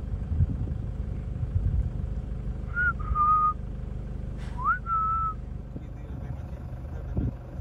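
Low, steady rumble of a safari vehicle's engine running. Over it come two short whistles about a second and a half apart, each rising quickly and then held on one note for about half a second.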